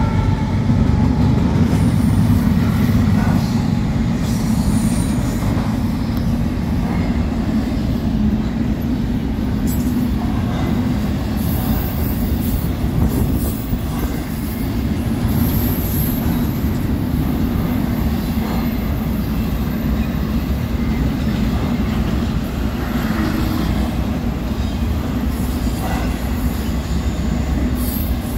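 A BNSF double-stack intermodal freight train's cars rolling past close by: a steady rumble of steel wheels on the rails, with thin high wheel squeals now and then.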